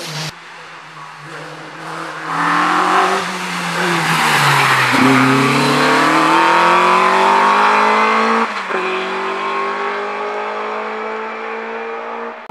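Single-seater racing car's engine at full throttle, passing close by and accelerating away uphill. The engine note drops as the car goes past, then climbs. There is a quick upshift about eight and a half seconds in, after which it is a little quieter as it pulls away.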